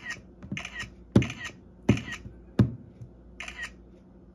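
Water splashing in short bursts as a phone is plunged up and down in a plastic tub of water, with three sharp knocks of the phone against the tub a little after one second, at about two seconds and again half a second later.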